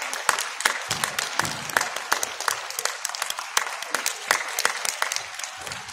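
Audience applauding: a dense patter of hand claps that slowly thins and grows quieter.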